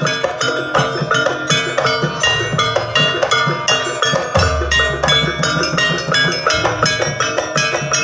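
Jaranan gamelan music: many short ringing metal notes in a quick, even rhythm, with drum strokes and deep gong tones underneath.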